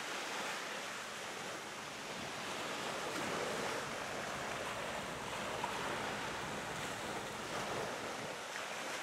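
Steady rushing of wind and choppy sea water, an even noise that swells a little now and then.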